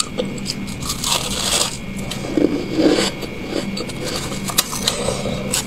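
Refrozen freezer frost crunching as it is bitten and chewed: a dense run of crisp crackles. A metal spoon scrapes and scoops the frost in a metal bowl.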